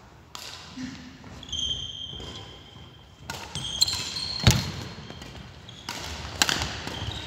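Badminton rally: rackets striking the shuttlecock with sharp smacks, the loudest a little past halfway and again about six seconds in, with short high squeaks of court shoes on the wooden floor.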